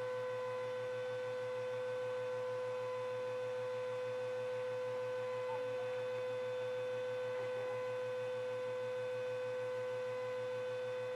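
Canister vacuum cleaner and hair dryer running together at the same time: a steady motor whine over a low, evenly pulsing hum.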